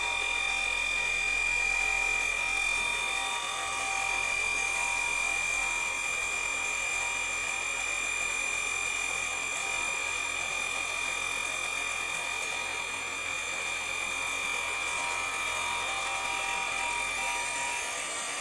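Mitre saw running and slowly cutting through aluminium box tube: a steady high-pitched whine.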